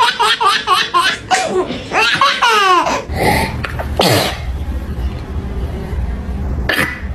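A small child laughing in quick repeated bursts, with a short sharp burst about four seconds in.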